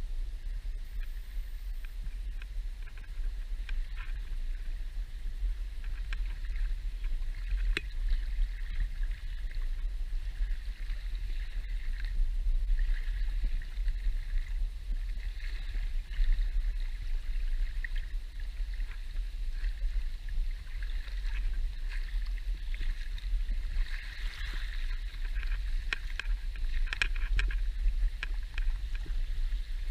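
Shallow sea water lapping and washing right at the microphone, with small crackling splashes over a steady low rumble; the splashing is busier near the end.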